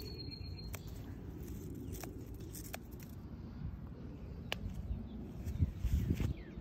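Hand scissors snipping twigs on a rose bush: a few separate sharp clicks over a low rustle of leaves and branches, with a louder burst of rustling near the end. A bird chirps faintly right at the end.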